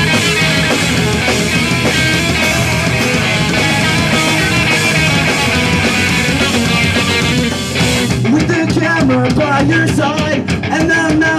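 A live punk rock band playing an instrumental passage on distorted electric guitars, bass and drum kit with cymbals. About eight seconds in the dense guitar-and-cymbal wash drops away to a sparser part with distinct drum hits and a moving melodic line.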